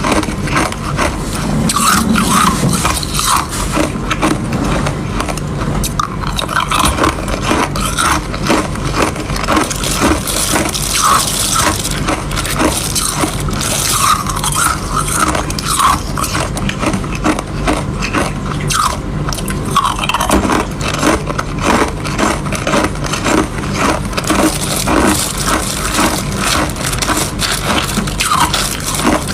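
Ice being bitten and chewed close to the microphone: dense, continuous crunching and cracking with no pauses.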